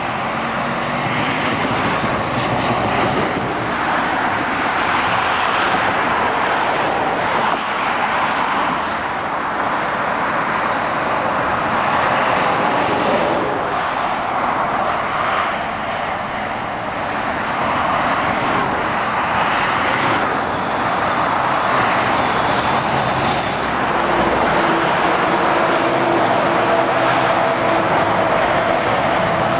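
Steady motorway traffic: cars and lorries passing, with tyres rushing on the road and diesel engines running. Near the end an approaching lorry's engine hum stands out.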